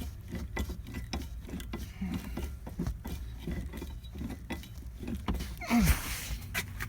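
Spare tire hoist of a Dodge Caravan being turned by hand to loosen it: a run of small irregular metal clicks and ticks, with a brief scrape about six seconds in.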